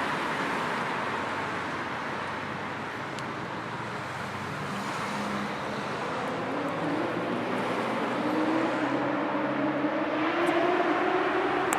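Road traffic noise: a steady rush of passing cars with low engine hum. In the second half an engine note rises slowly in pitch and grows louder.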